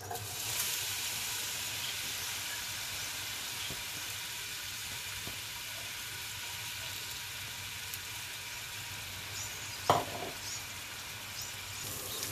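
Chopped onion tipped into hot oil in a stainless steel pot, setting off a sudden, steady sizzle of frying. A single knock sounds about ten seconds in.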